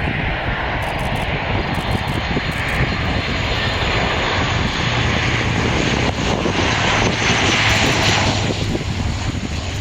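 Airplane engine noise as an aircraft flies past, a steady wide rush that swells to its loudest about three-quarters of the way through and then eases off.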